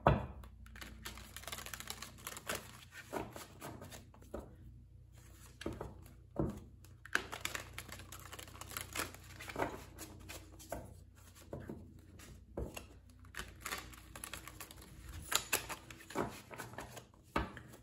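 A deck of tarot cards being shuffled by hand: irregular light clicks and rustles of the cards sliding and tapping against one another.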